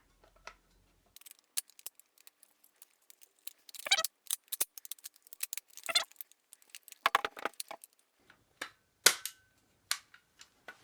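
Irregular sharp clicks and clacks of a DBoys HK416 airsoft rifle being reassembled, its upper receiver slid back onto the lower and parts snapped into place, with the loudest clack about nine seconds in.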